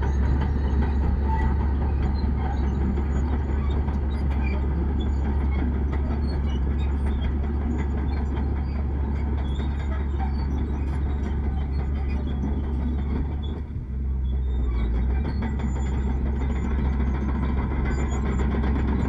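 Heavy earthmoving machine's diesel engine running with a steady deep drone, dipping briefly about fourteen seconds in.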